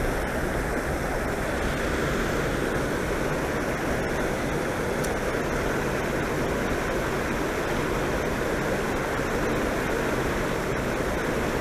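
Water rushing steadily from a storm-drain culvert outfall and churning into the river.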